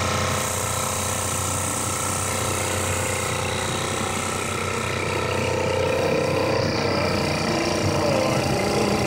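A 1934 Johnson J70 1.4 hp antique outboard motor running steadily under way at an even speed.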